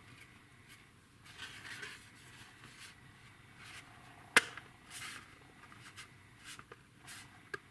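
Plastic model-kit wing halves being handled and pressed together: soft scraping and rubbing of plastic, with one sharp click a little over four seconds in and two fainter clicks near the end.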